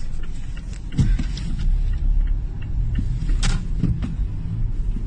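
Low rumble of earthquake shaking, with scattered knocks and rattles of objects and a brief rushing hiss about three and a half seconds in.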